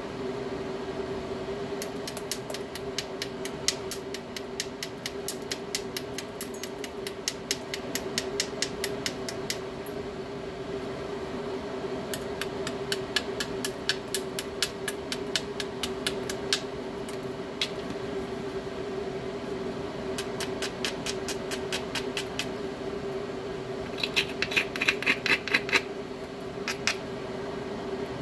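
A hammerstone working the edge of a stone biface: runs of quick, evenly paced stone-on-stone strokes, about four or five a second, stopping and starting every few seconds. A steady low hum runs underneath.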